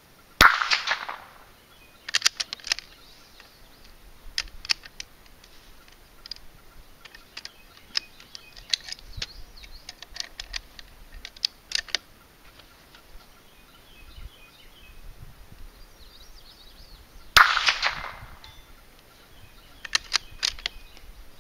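Two shots from a Marlin Model 80 bolt-action .22 LR rifle, the first about half a second in and the second about 17 seconds later, each a sharp crack with a short echo. Between and after them comes clicking of the rifle's bolt being worked.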